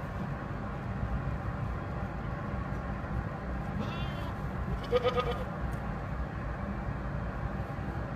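Goat bleating once, a single wavering call about four seconds in that lasts a second and a half.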